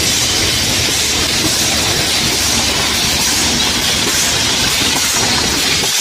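Aerosol filling and crimping machine running: a steady hiss of compressed air over a continuous mechanical rattle of cans and moving parts.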